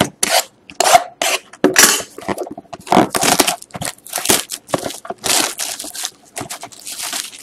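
Clear plastic shrink-wrap being torn and crinkled off a cardboard trading-card box: a quick, irregular run of short crackling rips and crinkles.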